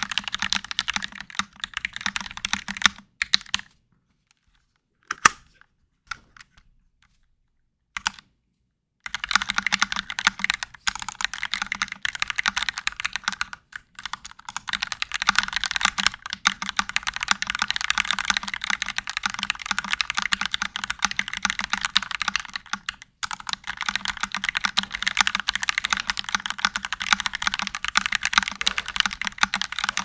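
Fast, continuous typing on a Kemove K68SE mechanical keyboard: a dense stream of keystrokes. The typing stops about four seconds in, with only a couple of single key presses, then starts again about nine seconds in and runs on steadily.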